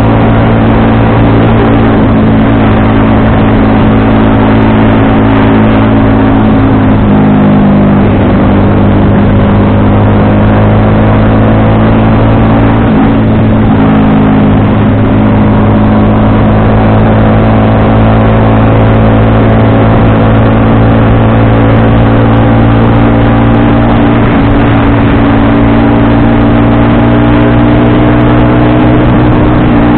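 FKM Victorino 250i V-twin motorcycle engine running on the road. Its pitch dips briefly and comes back about seven seconds in, then slowly rises through the second half.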